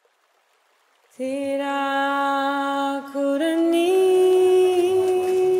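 Singing in long held notes that starts about a second in: one held note, a short break, then a slightly higher note held through the rest.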